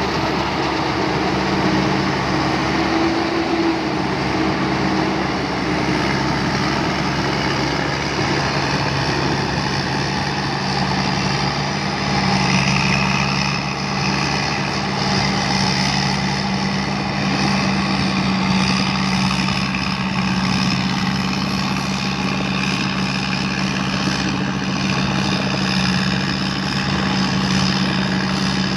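Tamco combine harvester's Isuzu 6HK1 six-cylinder diesel running at a steady speed: a constant low engine drone under a dense, even wash of machinery noise.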